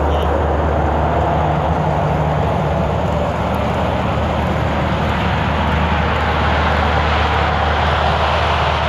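Four Allison T56 turboprop engines of an LC-130 Hercules at full takeoff power: a loud, steady propeller drone with a deep hum, the aircraft rolling on its skis down the snow runway toward the listener. The rushing part of the sound grows a little stronger near the end as it comes closer.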